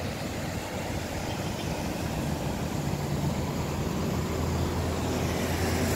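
Motor vehicle engine humming steadily, growing louder toward the end, over the rushing of fast-flowing floodwater.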